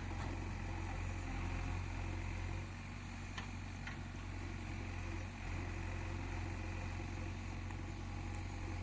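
JCB backhoe loader's diesel engine running steadily at a low, even hum, with two faint clicks a little before halfway.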